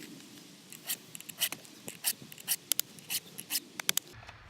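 Chainsaw chain being sharpened by hand with a file: about a dozen short, irregular scraping strokes across the cutter teeth, starting about a second in.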